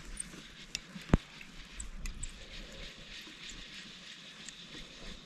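Faint lapping of lake water around a canoe, with a few light clicks and one sharp knock a little over a second in.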